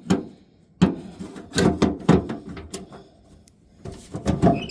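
Sharp metallic clicks and clunks from the tailgate latch rod and clip being worked by hand: one near the start, one about a second in, a cluster around two seconds, and another cluster near the end.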